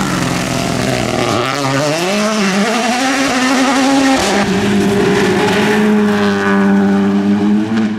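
Rally car engines at full throttle on a gravel stage. First, a note rises in pitch through the gears. About four seconds in, it changes to a Škoda Fabia RS Rally2's turbocharged four-cylinder holding a steady high-revving note as it slides past.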